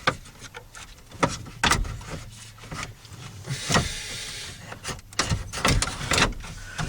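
Irregular plastic clicks, knocks and rustling as the heater control switch's wiring harness and connectors are pushed back into the car's dashboard opening, with a short scraping rustle about halfway through.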